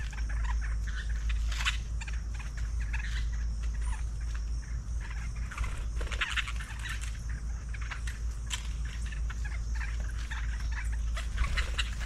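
Birds calling with many short, scattered chirps over a steady high hiss.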